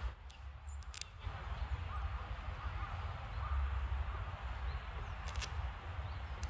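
Outdoor ambience with a steady low rumble, a few sharp clicks and several brief, very high bird chirps.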